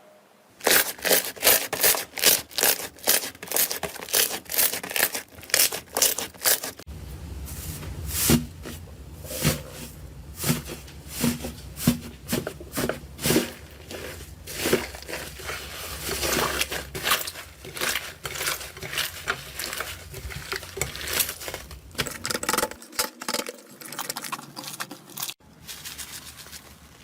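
Slime being pressed and stretched by hand, giving a dense run of sharp crackling clicks and pops. The texture changes about seven seconds in and again near the end.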